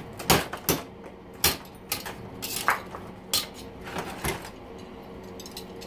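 Hammer striking seized, rusty steel spokes in an aluminum bicycle rim to knock them loose: sharp metallic clinks at irregular intervals, about ten of them, one ringing briefly, stopping near the end.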